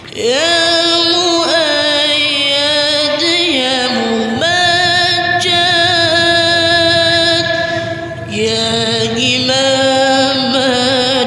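Background music: a sung Islamic devotional song (sholawat), a voice holding long, wavering notes that step to new pitches every few seconds.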